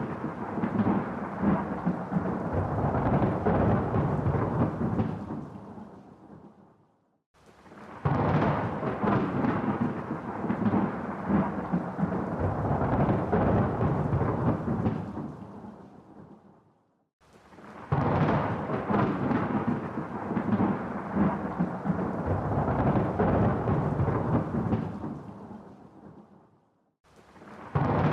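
Rolling thunder rumbling: three long, deep rumbles, each starting suddenly and dying away over several seconds, with short silent gaps between them.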